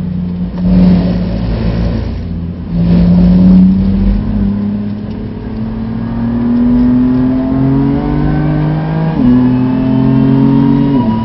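BMW F80 M3's twin-turbo straight-six heard from inside the cabin, accelerating hard. Its note climbs steadily, then drops sharply at a quick upshift about nine seconds in, and again at the end. Two louder rushes of noise come over the engine in the first few seconds.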